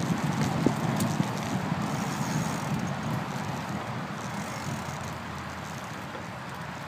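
Riding noise from a bicycle heard through a handlebar-mounted phone: wind rushing over the microphone and the rattle of the bike and mount on the path, with a few sharp clicks about a second in. The noise slowly grows quieter.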